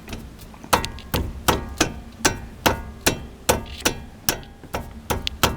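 Renault Logan front brake assembly knocking as it is rocked in its play, about thirteen sharp knocks at roughly two and a half a second. It shows a knock in the front brake, which the owner takes for the brake pads rattling loose in the caliper.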